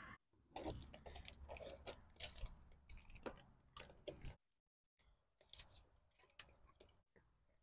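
Faint, irregular clicks and crunching scrapes of hands-on work, stopping dead for a moment about four and a half seconds in and then going on more faintly.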